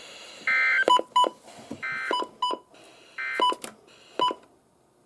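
Emergency Alert System SAME data bursts sounding three times, each a short raspy electronic squawk about a third of a second long, spaced a little over a second apart: the end-of-message signal that closes a broadcast warning. Sharp clicks and short beeps fall between the bursts.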